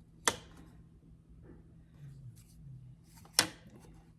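Two sharp taps of a hard object, such as a small plastic ruler, set down on the work table about three seconds apart, with faint rustling of fabric being handled between them.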